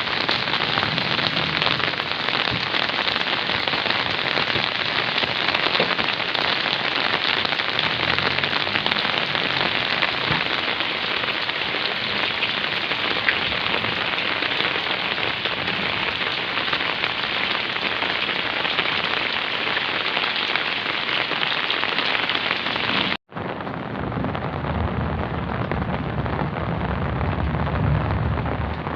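Steady downpour of rain, a dense even hiss of drops. About 23 seconds in it cuts out for an instant and comes back with a deeper, fuller low rumble to it.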